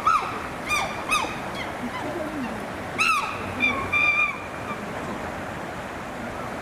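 Chimpanzees calling: a run of short, high calls that rise and fall in pitch, several in the first second or so and more about three to four seconds in, over a steady outdoor hiss.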